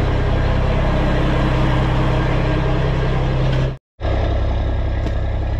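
Semi truck's diesel engine idling steadily. The sound cuts out for a split second about four seconds in, then resumes.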